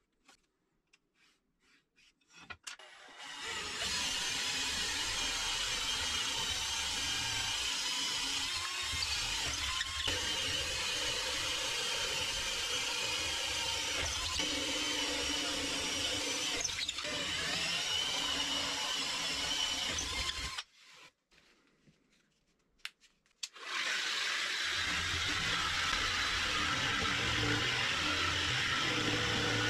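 Electric power tool motor running steadily in two long stretches, stopping for a few seconds about two-thirds of the way through and then starting again. A few light clicks and knocks are heard in the quiet before it starts and in the pause.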